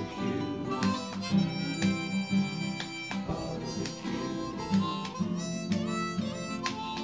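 Background music: a harmonica playing over strummed acoustic guitar.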